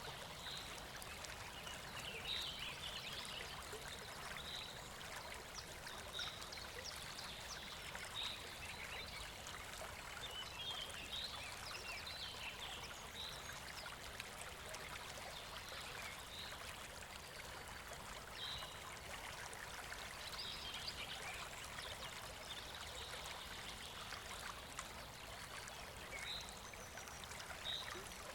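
Kunhar River flowing, a steady rushing of water, with short high chirps every couple of seconds over it.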